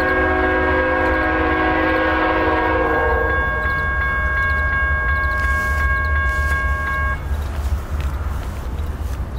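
Air horn of Norfolk Southern 8098, the Conrail heritage diesel locomotive, sounding one long multi-note blast as the train approaches. Its lower notes drop out about three seconds in and the rest cuts off about seven seconds in, over a steady low rumble.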